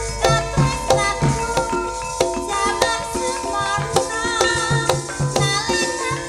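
Javanese gamelan music for a tayub dance, played loud through a PA: struck, ringing bronze keyed tones in a steady pattern of about three strokes a second over a recurring low drum beat.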